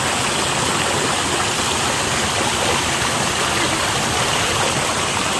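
Mountain stream rushing over rocks, a steady loud wash of running water.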